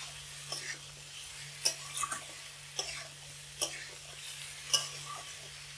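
Metal spatula scraping and knocking against an aluminium kadai as cauliflower and potato pieces are stirred and sautéed in spice paste on medium heat. There are irregular clicks and scrapes about once or twice a second over a faint sizzle.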